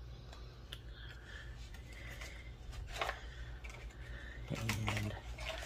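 Paper and craft supplies handled on a work table: scattered small clicks, taps and rustles, a little louder about three seconds in, over a steady low hum.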